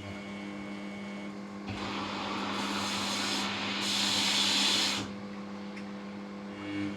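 Samsung washing machine running, its motor giving a steady hum. A loud rushing, hissing noise builds up about two seconds in and cuts back sharply about five seconds in. This is the abnormally loud noise the machine is being checked for.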